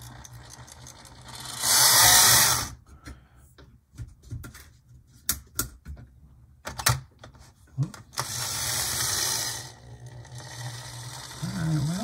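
HO-scale model diesel locomotive with a Bachmann pancake motor whirring along sectional track in two short runs, the first about a second and a half in and louder, the second about eight seconds in. Sharp clicks and knocks come between the runs, and a low hum sits underneath.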